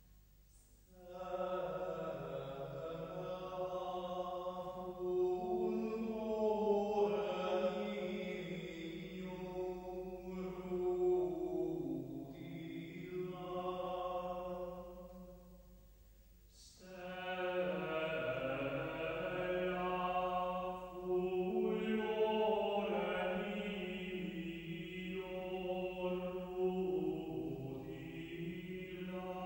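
Sacred vocal chant in slow, sustained notes, sung in two long phrases with a brief pause about halfway through.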